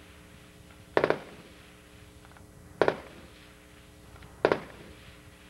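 Distant gunfire from tanks on a gunnery range: three sharp reports, each with a short echo, about one and a half to two seconds apart.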